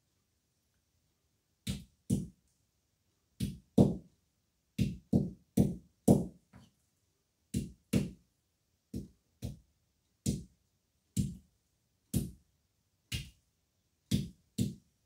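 A stone striking fresh green olives on a board, cracking them one at a time as a step in curing them. There are sharp knocks, often in quick pairs, about one blow or pair every second, at an uneven pace.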